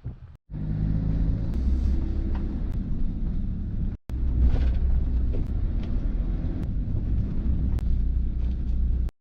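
Boat engine running steadily with a low rumble, heard on board, with some wind noise; the sound drops out briefly twice.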